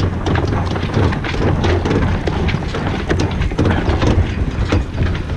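Yacht sheet winch being ground with a winch handle, its pawls giving many irregular sharp clicks, over a heavy rumble of wind buffeting the deck-mounted camera's microphone.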